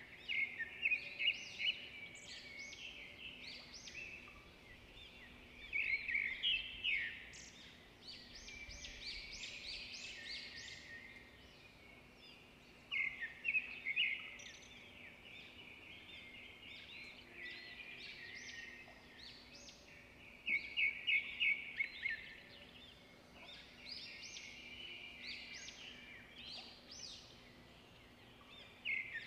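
Birds chirping: bursts of quick, high chirps every several seconds, over a faint steady hum.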